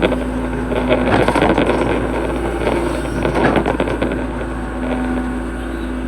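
Hitachi hydraulic excavator's diesel engine running steadily while digging a ditch, with bursts of crackling and scraping about one to two seconds in and again about three and a half seconds in as the bucket works the ground.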